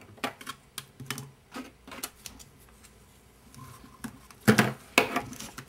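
Electrical tape being pulled off its roll and wrapped around a battery pack on a plastic hair dryer body: a string of irregular clicks and crackles, the two loudest about four and a half and five seconds in.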